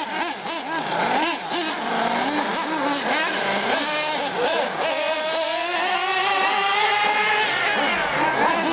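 Small two-stroke nitro engines of 1/8-scale R/C off-road cars running on track, revving up and down over and over through the turns. In the second half there is one long rising rev as a car accelerates down a straight.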